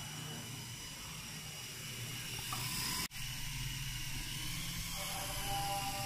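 Syma S107 toy helicopter's coaxial rotors and small electric motors whirring steadily in a hover. The sound cuts out for an instant about three seconds in, then comes back a little louder, with a few more tones in it.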